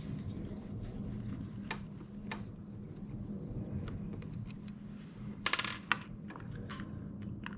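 Light clicks and taps of small hard parts and tools being handled while a winch controller connector is taken apart, with a short rattling cluster of clicks about five and a half seconds in, over a steady low hum.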